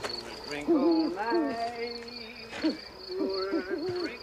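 Crickets chirping steadily, about three chirps a second, with a string of low hooting notes over them that rise, hold and drop in pitch.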